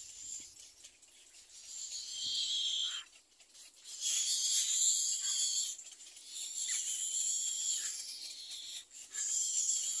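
Egret nestlings giving high, raspy calls in several bouts of a second or two, the loudest bout about four seconds in.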